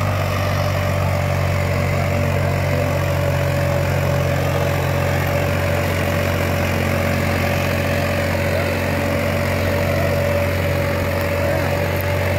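Swaraj tractor's diesel engine running steadily under load, pulling a disc harrow through the soil, with a constant low hum and a steady higher whine above it.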